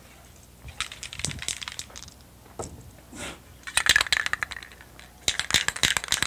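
Aero Comex acrylic spray-paint cans handled at a table and shaken: the mixing ball rattles inside in two bouts of rapid clicks, the first about four seconds in and a longer one near the end, after a few softer knocks of cans being picked up.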